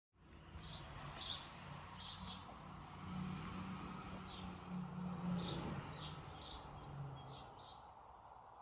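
Birds chirping: short high chirps every second or so, over steady outdoor background noise and a low hum that fades out near the end.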